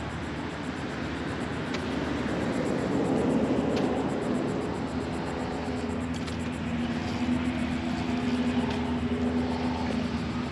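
Steady drone of a distant engine, swelling in loudness about three seconds in and again near the end.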